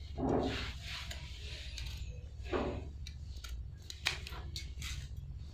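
Scissors cutting through checked cotton cloth, with the cloth rustling as it is handled and a few sharp clicks near the end.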